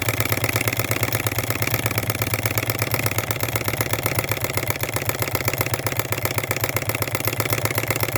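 Model Rider-Ericsson hot-air pumping engine running steadily, with a fast, even clatter over a low hum. It is running at its proper speed and its water pump is pumping without sucking in air, the newly made pump seal holding.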